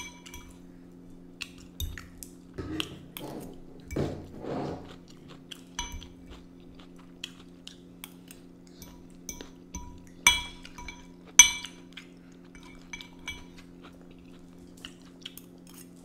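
Metal forks clinking and tapping on ceramic plates and a bowl: scattered light clinks throughout, with two sharper ones about ten and eleven seconds in, over a steady low hum.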